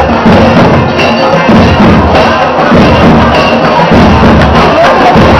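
Marching band playing loudly, with dense, rapid drum hits throughout.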